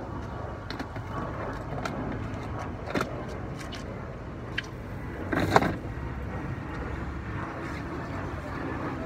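Pressure washer running steadily, with scattered clicks and one louder knock about five and a half seconds in.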